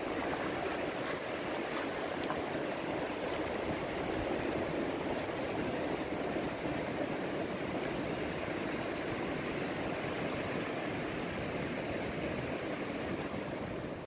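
Steady wash of sea surf on a beach, an even rushing noise with no single wave standing out.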